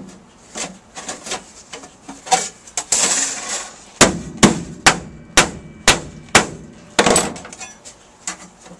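A hammer tapping a thin 22-gauge sheet-steel patch into place against a rusted floor seam: a few light knocks and a short scrape of metal, then about seven sharp strikes, roughly two a second.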